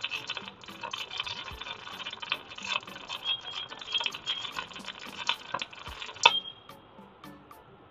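Jasic MIG welder's arc crackling and spitting steadily as a bead is run on steel plate, then stopping with a sharp snap about six seconds in. The arc is running hot: the welder calls it very strong, with the settings still to be turned down.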